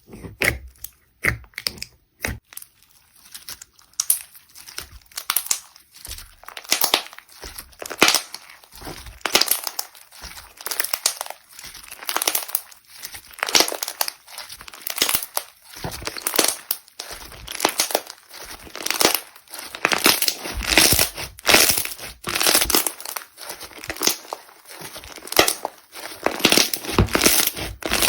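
Slime being squeezed and worked by hand, giving irregular crinkly, crackling sounds in quick succession. The sounds are sparse for the first couple of seconds, then come thick and continuous.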